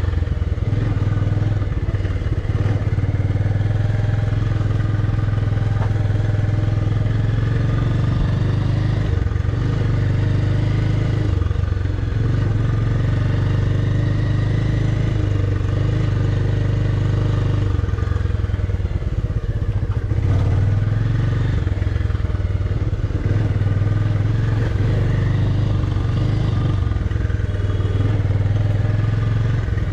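Motorcycle engine running as the bike is ridden slowly along a dirt track, heard from the rider's seat. The engine note is steady, with brief drops and changes in pitch about twelve seconds in and again near twenty seconds as the throttle eases.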